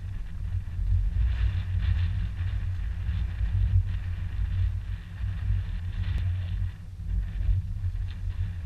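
Wind in a 15 to 18 knot breeze buffeting the microphone: a gusting low rumble that rises and falls, with a fainter hiss of wind above it.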